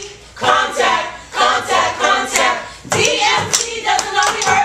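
A group of young voices chanting together in two long phrases, with a few sharp drumstick strikes.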